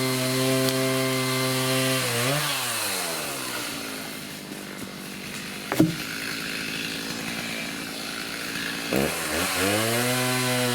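Two-stroke chainsaw held at high revs, dropping to idle about two seconds in and revving back up near the end. One sharp crack sounds about halfway through, while it idles.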